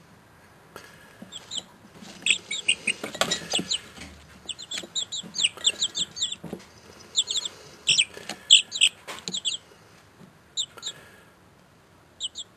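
Young chicks peeping: many short, high chirps in quick runs that thin out near the end, with a couple of soft knocks among them.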